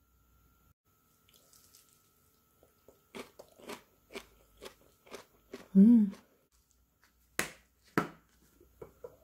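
Crisp, wet crunching of fresh napa cabbage geotjeori, short crunches about two a second, with one brief louder low hum in the middle. Near the end come two sharp clicks, the snap-lock latches of a glass storage container lid being shut.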